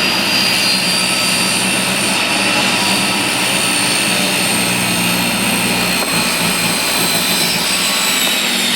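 A machine running with a loud, steady whir, its faint high tones drifting slowly lower.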